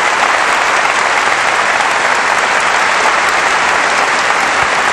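Large concert-hall audience applauding and cheering, a steady, sustained ovation.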